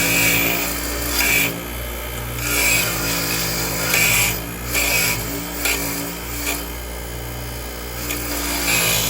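Corroded metal brackets being scrubbed clean, with irregular rasping strokes about once a second over a steady low hum.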